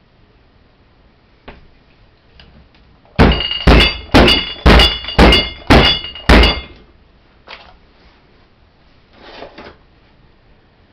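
Loaded wooden soap loaf mold knocked down hard on a table seven times, about two a second, each thump with a brief glassy ringing from bottles on the table. A couple of lighter knocks and a soft paper rustle follow.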